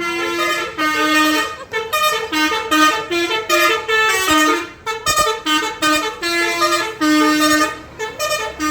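Bus 'telolet' horn, a multi-tone musical air horn, playing a quick tune of short and held notes that step up and down in pitch, with a brief break a little past halfway.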